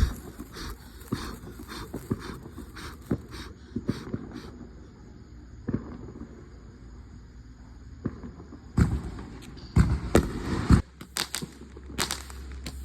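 Fireworks popping and crackling in irregular sharp reports, with two dense, loud runs of bangs about nine and ten seconds in.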